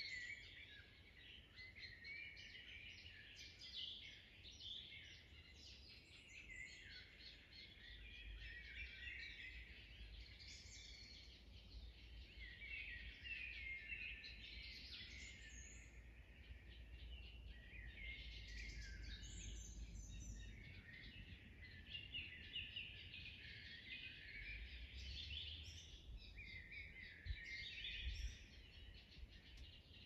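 Several wild songbirds singing and chirping at once, their songs overlapping without pause, over a faint low rumble.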